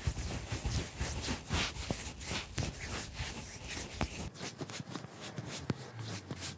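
Irregular rubbing and rustling from fingers massaging face cream into the skin of the neck, picked up close by a clip-on microphone.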